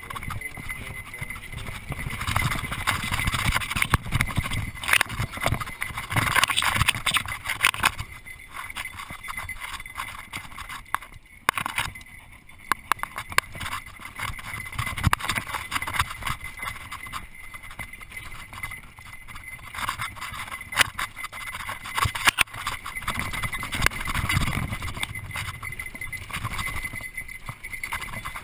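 Mountain bike riding fast down a dry dirt singletrack: tyres crunching over dirt and stones, with continuous rattling and knocking of the bike over bumps and a low rush of wind, rising and falling with the terrain.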